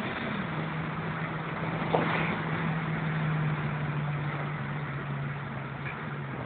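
Volkswagen Polo engine heard from inside the cabin while driving, a steady drone over road noise. Its pitch drops soon after the start and then sinks slowly as the revs fall, with a faint click about two seconds in.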